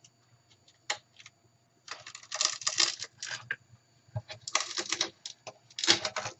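Adhesive tape being peeled off a plastic radio cabinet, crackling in several short spells over the last two-thirds, after a few single clicks.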